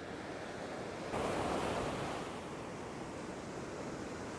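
Ocean surf breaking and washing up a sandy beach, a steady wash with a louder surge about a second in.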